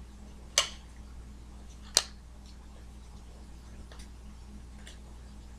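Baseball trading cards being handled and sorted by hand: two sharp card snaps about half a second and two seconds in, then two fainter ticks as cards are flicked and laid on the table, over a steady low hum.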